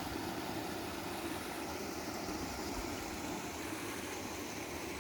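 Steady rushing of water from a desert waterfall, an even hiss with no distinct events.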